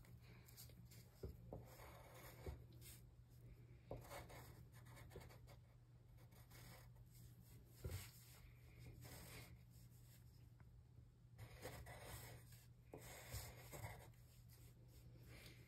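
Faint scratching of a pencil writing on a paper worksheet, coming in short stretches of strokes with pauses between them. A few soft taps sit among the strokes.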